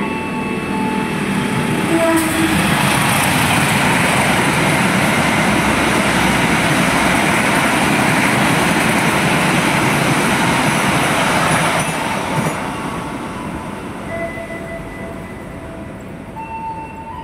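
The KA Dharmawangsa, a diesel-hauled long-distance passenger train, passes at speed. The rush of its wheels and carriages is loud for about ten seconds, then fades steadily as it moves away.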